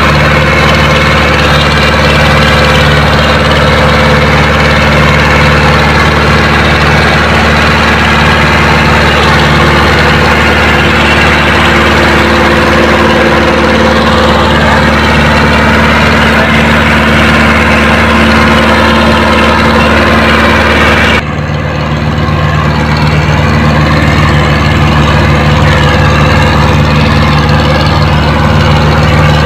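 Powertrac Euro 60 tractor's diesel engine running steadily under load while pulling a disc harrow. The sound dips suddenly about two-thirds of the way through, then goes on the same.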